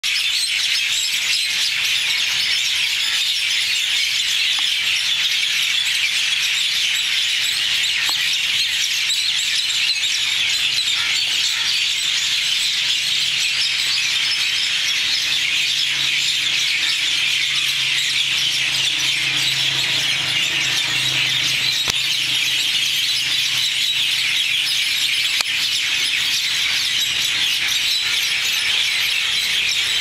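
A dense, steady chorus of many birds chirping and calling at once, a whole flock sounding together in the trees at dusk.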